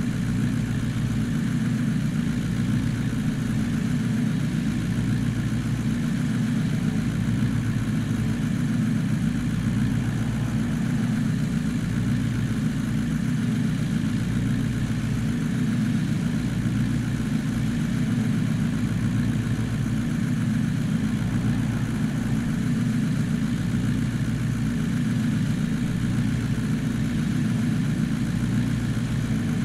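A vehicle engine running steadily with a low, even drone, without revving.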